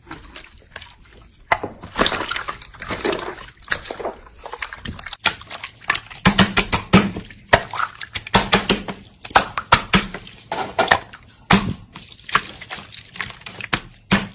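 Slime being squeezed and worked by hand, making irregular wet clicks, pops and squelches that grow louder and busier about a second and a half in.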